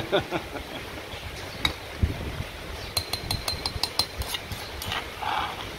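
A metal spoon scraping and knocking pounded spice paste out of a granite mortar. About three seconds in comes a quick run of sharp, ringing clinks as the spoon is tapped against a dish to knock the paste off.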